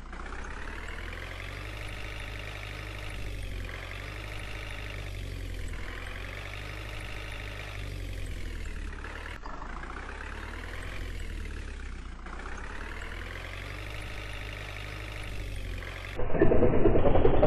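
Truck engine sound, its pitch rising and falling again about every two seconds as if revving. About a second before the end it cuts to a louder, rougher, duller motor-like sound.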